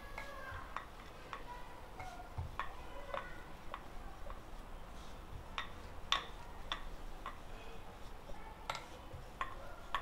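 Wooden rolling pin clicking and knocking on a marble rolling board as paratha dough is rolled out: a quick, irregular run of light ticks, about two a second, a few louder than the rest.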